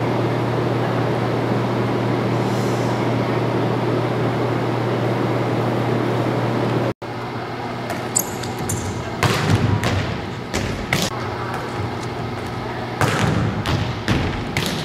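A steady hum and hiss of gym background noise for about the first seven seconds. Then, after a brief cut, a volleyball drill in a gym: sharp slaps of the ball being set and hit and thuds of it landing on the hardwood floor, several of them over the next seven seconds.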